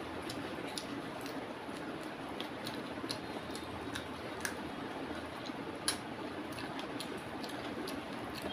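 Close-miked eating by hand: scattered small clicks and smacks of chewing and of fingers picking chicken off the bone, a louder click about six seconds in, over a steady background hiss.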